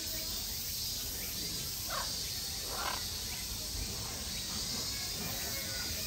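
Steady high-pitched insect chorus, with two brief faint calls about two and three seconds in.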